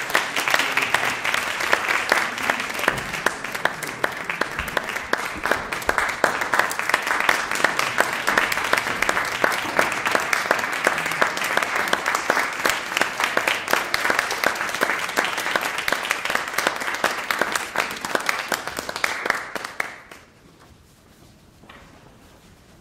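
Audience applauding: a dense, steady clapping that dies away quickly about twenty seconds in, leaving quiet room noise.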